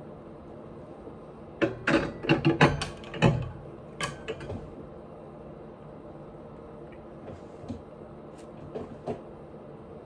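Close-miked eating and food-handling sounds: a flurry of sharp clicks and crackles from about two to four seconds in, then a few scattered clicks, over a steady low hum.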